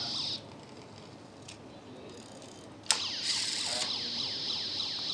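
Die-cast toy police car's built-in sound module playing an electronic siren through its tiny speaker. It cuts off about half a second in, and about three seconds in a sharp click is followed by the siren starting again.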